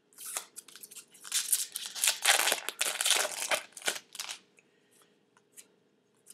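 Foil wrapper of a trading card pack crinkling and tearing as it is ripped open, in a run of quick rustling rips over about four seconds that stops well before the end.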